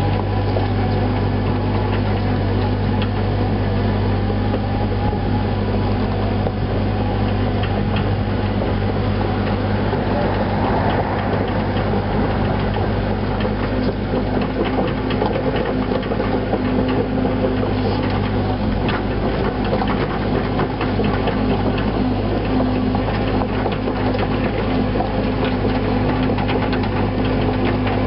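Cat 307C mini excavator's diesel engine running steadily as it works. From about halfway through it comes with a run of quick clicks and clanks from the tracks and blade as the machine travels.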